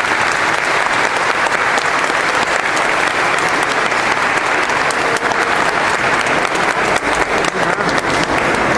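Crowd applauding: dense, steady clapping, with individual claps standing out more toward the end.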